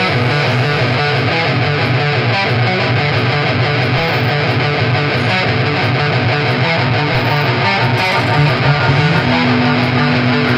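Instrumental band music led by electric guitar, loud and steady, with a held note coming in about nine seconds in.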